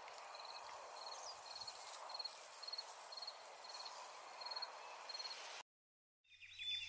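Faint cricket chirping, a short pulsed chirp about twice a second over a soft outdoor hiss. It cuts off abruptly about five and a half seconds in, and music begins just before the end.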